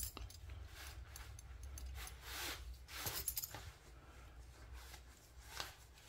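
Faint rustling and a run of short clicks and light clinks as a thick 1.5-inch leather belt is threaded through trouser loops and fastened with its stainless steel roller buckle.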